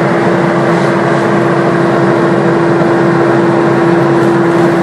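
Chimney dust-extraction exhaust fan running steadily: a loud rush of air with a constant hum through it, as the fan draws demolition dust out of the chimney.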